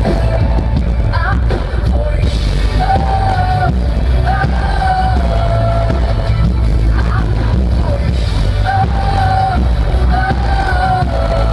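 Live synth-pop band playing at concert volume, a singer holding long sung notes over a heavy, steady bass.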